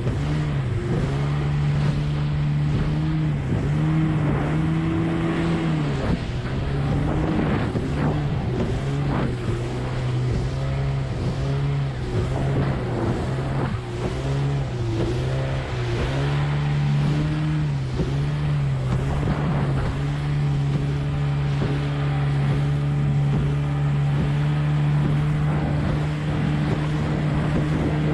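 20 hp Evinrude two-stroke outboard running at speed on a small hydroplane, its pitch rising and falling in short swells as the boat skips over chop, over steady spray and water noise with light slaps against the hull.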